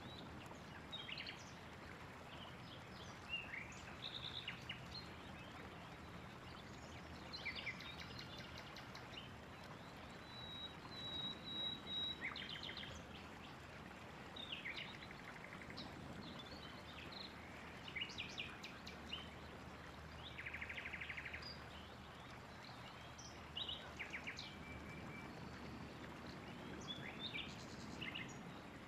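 Several songbirds singing and calling, with short chirps, rapid trills and one longer whistle about ten seconds in, over a steady faint background hiss.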